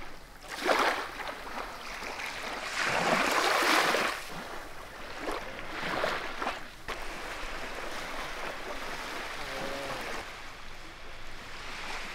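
Small waves lapping and washing up a sandy beach close to the microphone, several washes one after another, the biggest about three to four seconds in.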